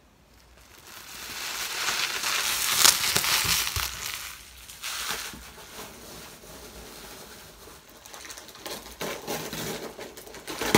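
Plastic bubble wrap crinkling and rustling as it is handled and scrunched. It builds about a second in and is loudest for the next few seconds, then goes on as quieter, intermittent rustling with a few sharper crackles near the end.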